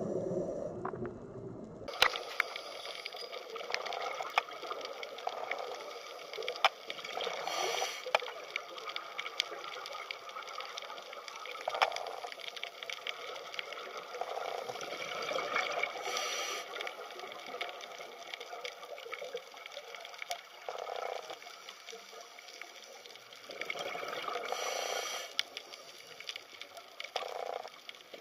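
Underwater recording over a coral reef: a low rushing of water that cuts off about two seconds in, then a constant fizzy crackle of tiny clicks with short bursts of bubbling every few seconds.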